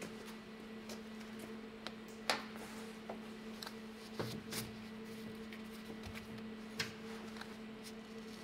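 Scattered clicks and light knocks of tools and small parts being handled during hands-on work, one sharper knock about two seconds in and a few more near the middle, over a steady low hum.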